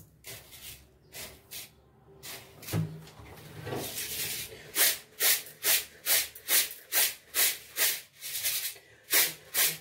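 Dry rice grains swished and shaken in a bowl as they are picked over for stones, a rhythmic rustling. A few scattered strokes at first, then about two to three strokes a second from about halfway in.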